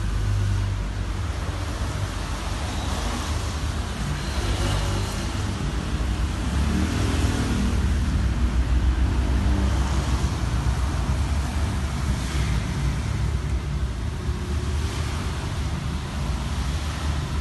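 Car engine running steadily with a low hum, a little louder in the middle.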